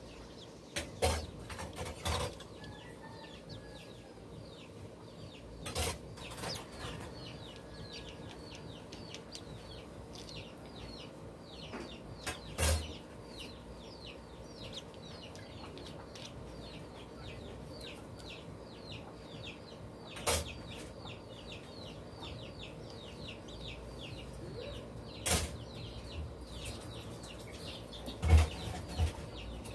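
Chicken chicks peeping continuously, a steady stream of short, high, falling peeps several a second. A few sharp knocks stand out over it, the loudest near the end.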